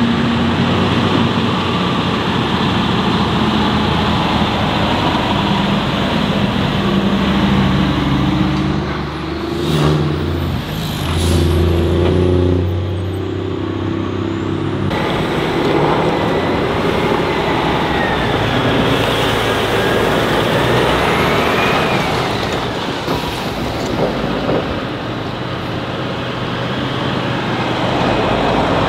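Heavy Tatra off-road trucks running their diesel engines under load on a dirt track, the engine note stepping up and down in pitch as they work. In the second half a whine dips and rises again a little past the middle.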